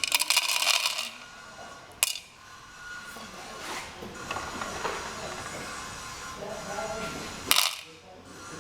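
Dried maize kernels rattling as they are poured out for weighing, a dense patter of small clicks for about a second, then a sharp click about two seconds in and a louder knock near the end.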